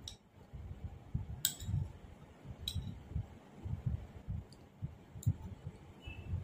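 Close-up chewing of soft, syrupy Bengali sweets (rasgulla and gulab jamun): a steady run of soft low thuds about three times a second, with a few sharp clicks scattered through it.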